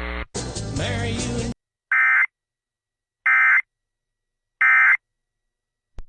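A short snatch of broadcast music, then three short identical rasping digital data bursts at a steady pace: the EAS SAME end-of-message (EOM) code that closes an emergency alert.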